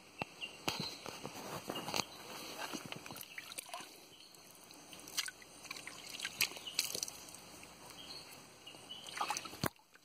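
Water sloshing and splashing inside the water-filled hollow of a tree stump, with irregular small splashes and clicks throughout and a sharp knock near the end.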